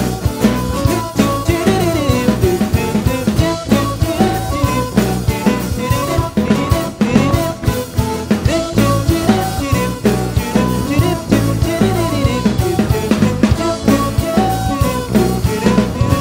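A band playing the instrumental opening of a song: a drum kit keeps a busy, steady beat with snare and rimshot hits under a melodic line, without singing.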